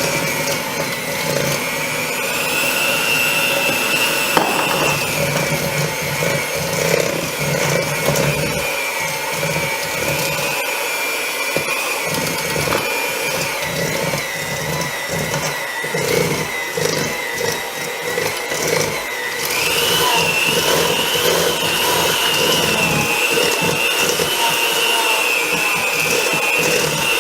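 Electric hand mixer running continuously, its beaters working flour and cocoa powder into a butter-and-sugar cookie dough. The motor whine drops in pitch for a while and rises again about two-thirds of the way through as the speed and load change.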